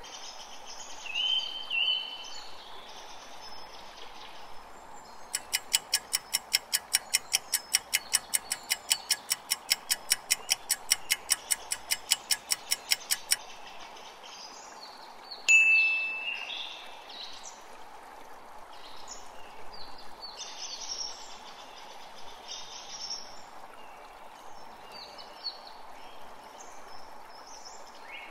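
Nature ambience of birds chirping over a steady hiss. A fast, even ticking of about four to five ticks a second runs for about eight seconds starting a few seconds in, like a quiz countdown timer. A single sharp, ringing note, the loudest sound, comes about halfway through.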